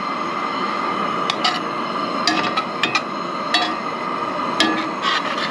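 A metal utensil clinking against a pan a handful of times, short sharp knocks spread through the middle and end, over a steady hiss.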